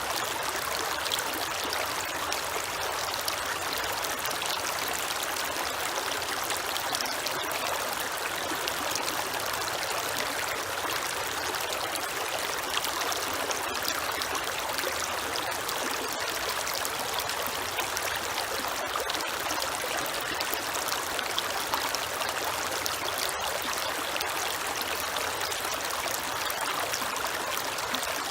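Creek water flowing and trickling in a steady, even rush.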